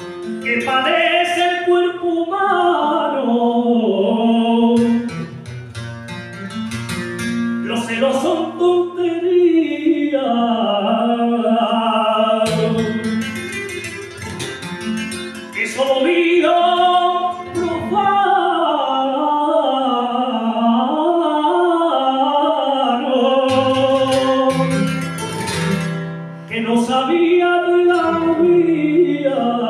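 Male flamenco singer singing fandangos in long, ornamented phrases with bending held notes, accompanied by a flamenco guitar that carries on between the sung lines.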